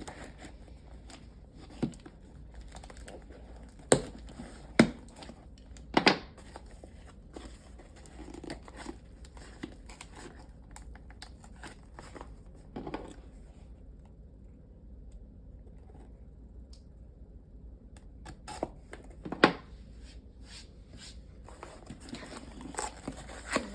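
A mailed package being torn open by hand, its packaging crinkling and rustling, with several sharp knocks and clicks as it is handled. The sound goes quieter for a few seconds past the middle.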